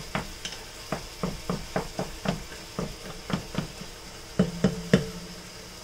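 Wooden spoon stirring meat browning in a metal stockpot: quick scrapes and knocks against the pot, about three a second, over a faint sizzle. Near the end come three louder knocks on the pot that ring briefly, and then the stirring stops.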